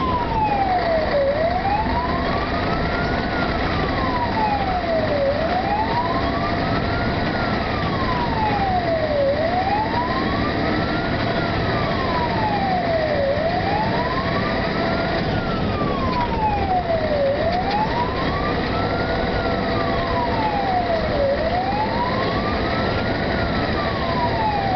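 Fire engine siren in a slow wail, rising over about two seconds and falling over two, once every four seconds, over the steady noise of the truck's engine and tyres on the road.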